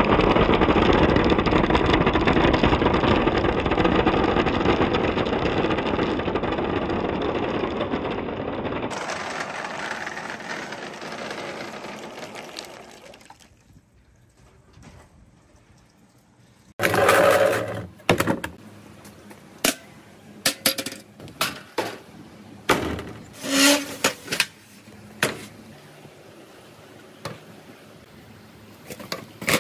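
Hundreds of glass marbles rolling and clattering together down a long wooden pegboard slope, a dense steady rumble that fades out about twelve seconds in. After a short lull come scattered sharp clacks and knocks of balls striking hard surfaces.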